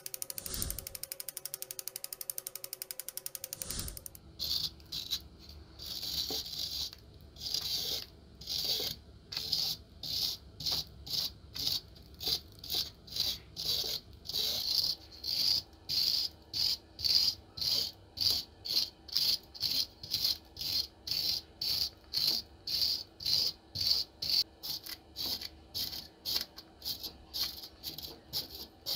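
A wire brush scrubbing caked rust and corrosion off an old metal gun, in scratchy strokes that settle to about two a second. The strokes begin about four seconds in, after a rapid mechanical ticking.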